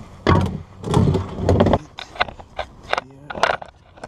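Hand tools handled under a car. There are three dull bumps in the first two seconds, then a quick irregular run of light metal clicks and clinks as a wrench is worked near the oil pan.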